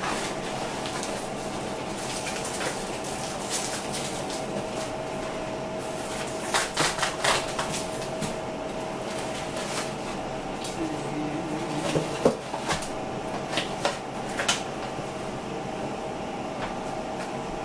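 Cardboard box and plastic wrapping crackling in short bursts as frozen burger patties are pulled out and handled, twice in clusters, over a steady background hum.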